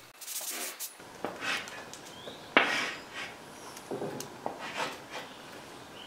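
Chalk drawing lines on a blackboard: a handful of separate scraping strokes a second or so apart, the sharpest about two and a half seconds in.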